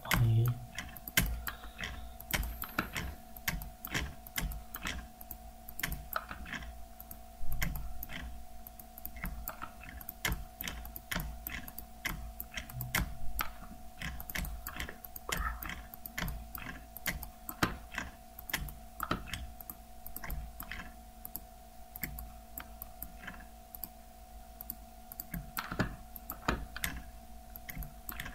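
Computer mouse clicking over and over at an uneven pace, each click setting a point of a polygonal lasso selection, over a faint steady hum.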